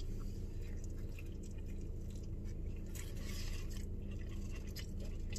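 A man chewing a big bite of cheesesteak burrito, faint scattered mouth sounds over a steady low hum.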